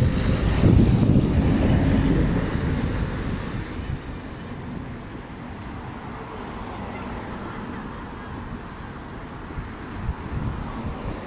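A van driving past close by, its engine and tyre noise loud for the first few seconds, then fading away into quieter steady street traffic noise.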